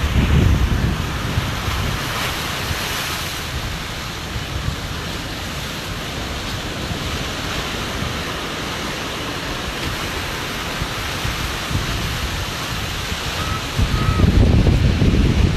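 Wind rushing over the microphone as a steady hiss, with heavier low buffeting about half a second in and again near the end.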